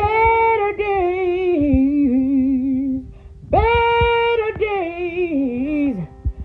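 A woman singing a wordless, drawn-out melody in two long phrases with vibrato, each sliding down in pitch at its end, with a faint steady tone underneath.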